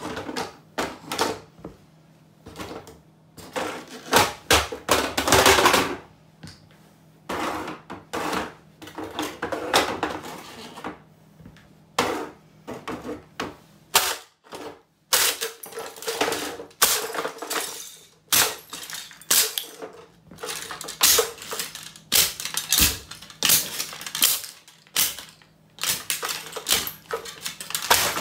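Rubber-soled steel-toe safety boots stomping on and kicking a hard plastic toy across a tile floor. A long run of irregular sharp cracks, snaps and clatters as the plastic breaks apart, with a dense flurry of hits about four to six seconds in.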